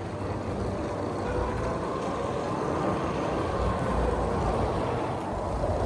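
Steady rumble of street traffic, vehicle engines running nearby.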